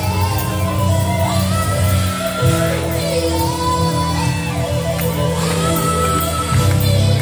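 Live worship music: sustained chords under a voice singing long held notes, the chord changing about two and a half seconds in, with shouts from the congregation.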